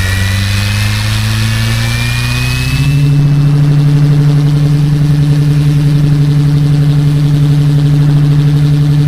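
Fly-Wing MH-60R SeaHawk 470-size RC helicopter spooling up: the motor whine and rotor hum rise in pitch for about three seconds. The rotor then runs at a steady speed with a loud, even hum.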